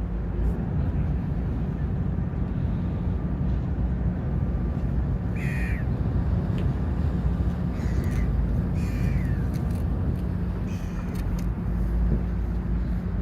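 Sightseeing boat's engine running with a steady low drone, with a bird giving short falling calls four times from about five seconds in.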